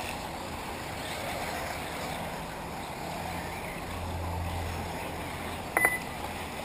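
Electric 1/8-scale RC off-road buggies running around a dirt track at a distance, a steady noisy mix under a low hum. About six seconds in there is one short, sharp sound with a high tone.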